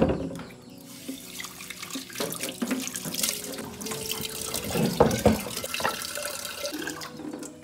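Water running and splashing, as from a tap into a sink or basin, with small clatters and a few knocks, the loudest about five seconds in. Soft background music underneath.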